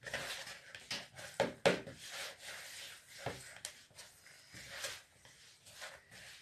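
Hands squeezing and working soft yeast dough in a plastic bowl: irregular squishing and rubbing, with a sharper knock about a second and a half in.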